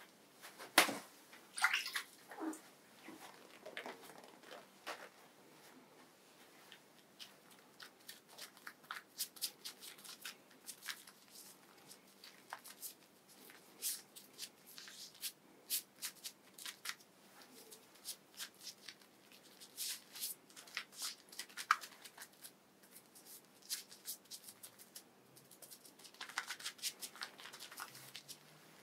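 Hands rubbing shaving foam into a closely buzzed scalp: soft, irregular wet squishing and crackling of the lather, with a louder tap about a second in.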